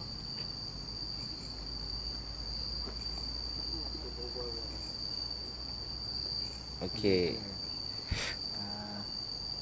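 Crickets trilling in a steady, high-pitched night chorus, with a single sharp click about eight seconds in.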